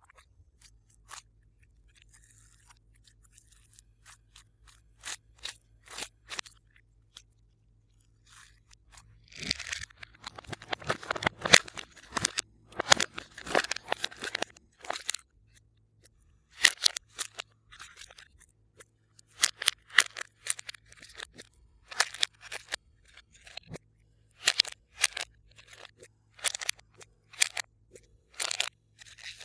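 Glossy slime being pressed and stretched by hand, giving sticky clicks and crackling air-bubble pops. The pops come in scattered groups, with a dense run of crackling about a third of the way in.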